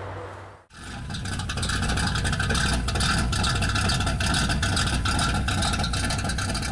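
An engine running steadily with a rapid, rough pulse. It starts abruptly less than a second in, after a moment of silence.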